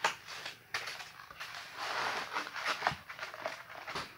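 Paper plates of leftover chili dogs and fries being handled and shifted, with food scraped from plate to plate: a string of light knocks and rustles, and a longer scraping rustle about two seconds in.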